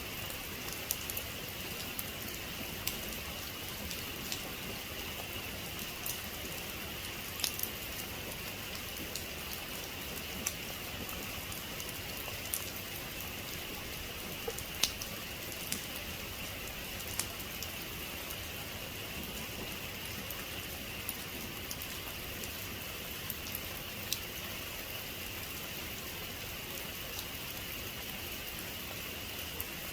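Steady heavy rain, with sharp drops striking a surface every second or two.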